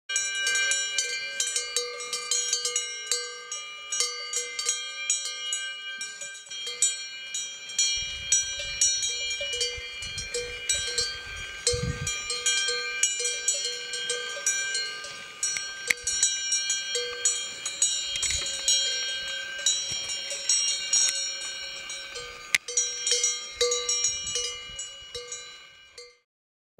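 Cowbell on a grazing cow's neck strap clanking irregularly, many rapid strikes ringing on top of one another, with some low rumbling midway; it fades out at the very end.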